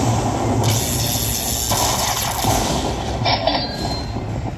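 Lightning Link slot machine playing its rumbling, crackling lightning sound effects as bolts strike the bonus reels. It runs in blocks that change about every second, over a steady low casino hum.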